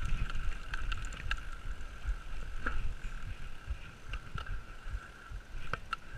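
YT Capra mountain bike rolling downhill over a rocky dirt track: tyres rumbling and knocking over stones, with sharp clicks and rattles from the bike. A steady high buzz from the coasting rear freehub runs through it, fading in the middle and returning near the end.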